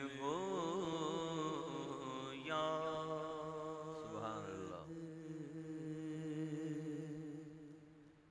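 A man singing a naat, a devotional poem in praise of the Prophet, in long held, wavering melismatic notes over a steady low drone. The singing fades away near the end.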